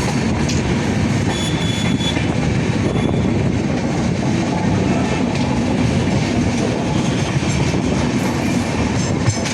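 Train running on the tracks: a loud, steady rumble with the clatter of wheels over rail, and a brief high wheel squeal about one and a half seconds in.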